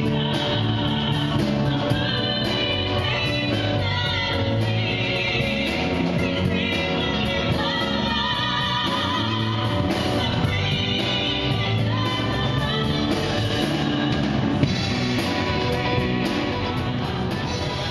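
A small vocal group singing a rock song together into microphones, over band accompaniment with guitar.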